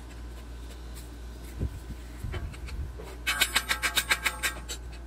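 Work on sheet-steel panels at a steel welding table: a few soft knocks, then a quick run of about ten sharp scraping or rasping strokes on the metal lasting about a second and a half, over a low steady hum.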